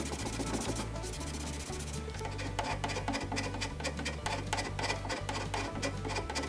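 Background music with a steady bass line over hand-work on a pine box. A rag or pad rubs the wood, then from about two seconds in a hand scraper scrapes an old finish off the pine in short, uneven strokes.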